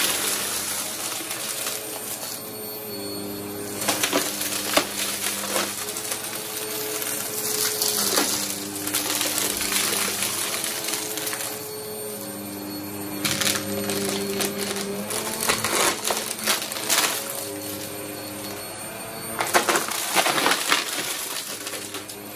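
Bagless upright vacuum cleaner sucking small hard debris off carpet: a dense rattling crackle of beads, sequins and coin-like bits clattering up through the nozzle into the clear bin, over a steady hum. The crackle swells in bursts, loudest about four seconds in, again from about thirteen to seventeen seconds, and near the end.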